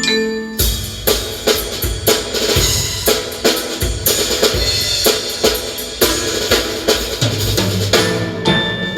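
Rock music with a steady drum-kit beat, about two hits a second, played loud through a Blaupunkt Bremen SQR46 car stereo and heard inside the vehicle's cabin; a strong bass line comes in near the end.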